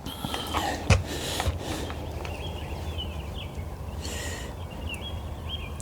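Outdoor range ambience with faint, repeated bird chirping, broken by a sharp knock about a second in and a few softer handling rustles from the crossbow.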